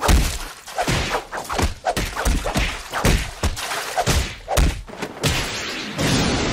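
Anime fight sound effects: a fast, irregular string of punch and kick impacts with swishes of movement, opening with a heavy hit.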